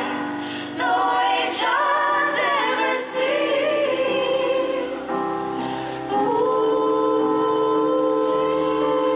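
Live band playing a slow song: electric guitar and keyboard under female voices singing drawn-out, choir-like harmonies, with several notes held for a second or more.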